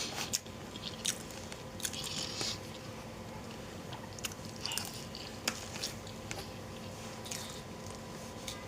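Close-miked chewing and eating mouth sounds: irregular wet smacks and short clicks as food is bitten and chewed.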